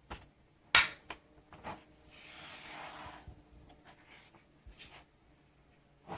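A mechanical keyboard being handled. There is one sharp clack just under a second in, then a few lighter clicks, and a rubbing sound lasting about a second in the middle.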